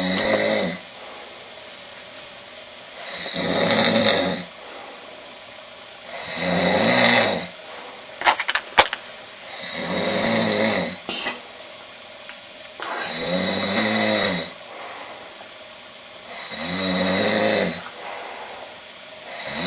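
A man snoring loudly in his sleep, one snore about every three seconds, each lasting about a second and a half. A few sharp clicks come about eight seconds in.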